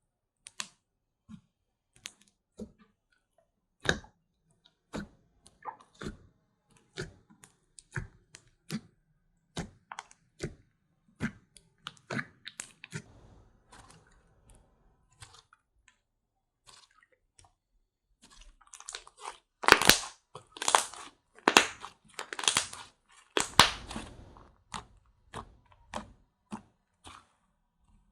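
Slime being squeezed and poked by hand close to a pin microphone: a steady run of short, sharp clicks and pops, with a louder stretch of crunchy squishing bursts about two-thirds of the way through.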